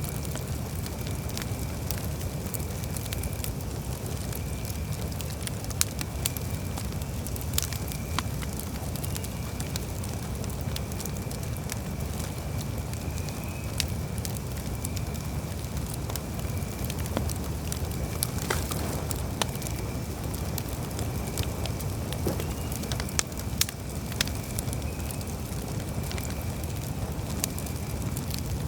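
Campfire crackling: a steady low rush of burning wood with frequent sharp pops and snaps, a few of them louder than the rest. A faint, steady high tone runs underneath.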